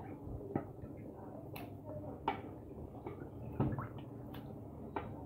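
Wet squelches and small irregular pops and clicks from thick tomato gravy with rice in an electric cooker pot, over a steady low hum.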